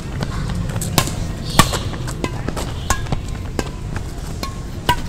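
Badminton rally: sharp racket strikes on the shuttlecock, some with a short ring from the strings, at intervals of about half a second to a second, with lighter clicks between them, over a steady low rumble.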